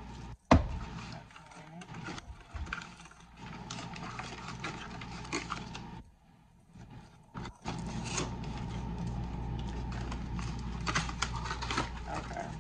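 A cardboard box and its packaging being handled and rummaged through: scattered rustles, scrapes and taps, with one sharp knock about half a second in.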